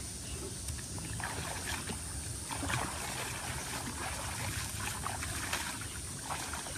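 Shallow pond water sloshing and splashing softly and irregularly as people wade and crouch in it.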